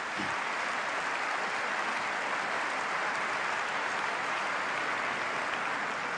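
Large seated assembly applauding, a dense steady clapping that holds at one level throughout.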